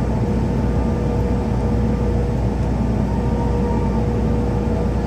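Steady cabin noise of a CRJ-700 regional jet on the ground, its rear-mounted GE CF34 turbofans running at low power: an even, deep hum with a faint steady whine.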